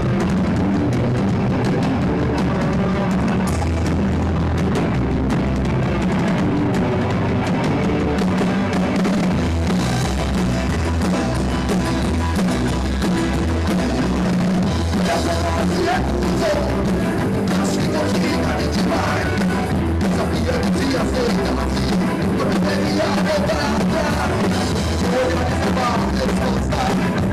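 Rock band playing loud punk rock, with a drum kit and singing.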